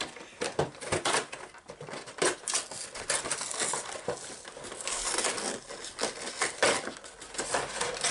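Pokémon TCG collection boxes being torn open and unpacked by hand: irregular tearing, crinkling and rustling of cardboard and wrapping.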